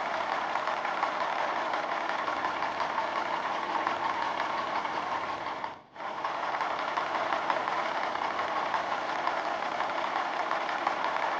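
Small motor vehicle engine running steadily at idle; it drops out abruptly for a moment about six seconds in, then resumes.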